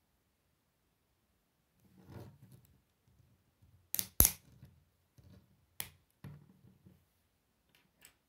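Plastic K'Nex connectors and rods being handled and snapped together by hand: a soft rustle of pieces, then two sharp plastic clicks in quick succession about halfway through, the loudest, another click a moment later and a faint one near the end.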